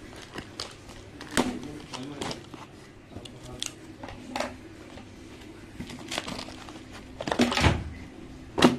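Cardboard shipping carton being handled and its flaps opened: scattered rustles, scrapes and light knocks of cardboard. The loudest is a longer scrape about seven and a half seconds in, followed by a sharp knock near the end.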